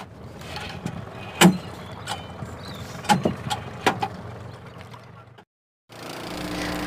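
A few sharp, irregular knocks and thuds inside a wooden fishing boat, the loudest about a second and a half in. A boat engine runs low underneath.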